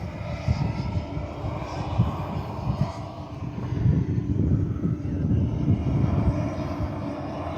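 Wind buffeting the microphone in uneven low rumbling gusts, with a faint steady hum underneath.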